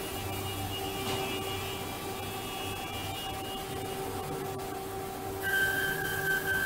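CNC curve-cutting band saw running, a steady machine hum with several whining tones as its carriage feeds a clamped stack of wood toward the blade. About five seconds in, a new higher whine comes in and the sound gets louder.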